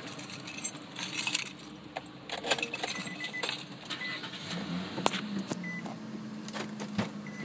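Jangling, rattling and clicking of things being handled inside a car, with a few short, high electronic beeps. A low steady hum comes in about halfway.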